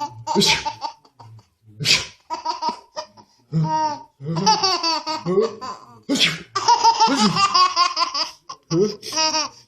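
A baby giggling and laughing in repeated bouts at someone's sneezes. Three sharp sneezes come about half a second, two seconds and six seconds in, each followed by more laughter.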